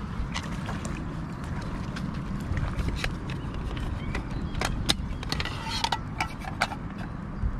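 Metal mess tin handled and opened, its lid clicking and clinking several times, with some short metallic rings, over a steady low rumble.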